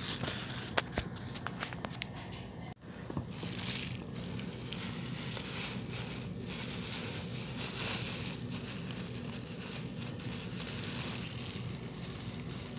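Crinkling and rustling handling noises, with a few sharp clicks in the first two seconds, over a low steady hum.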